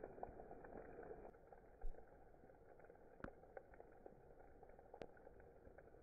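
Heavy rain and hail falling on wet ground and puddles, heard faintly. A steady hiss is broken by scattered sharp ticks of hailstones landing, with a brief low thump about two seconds in.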